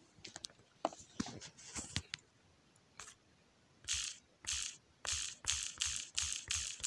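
A few scattered clicks and knocks, then about four seconds in a steady rhythm of short, hissy percussive beats with a low thud under each, about two a second.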